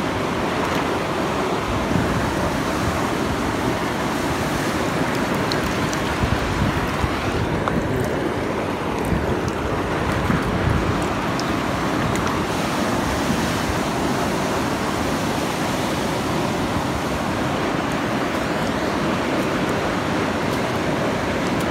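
Canal water rushing steadily through a small dam.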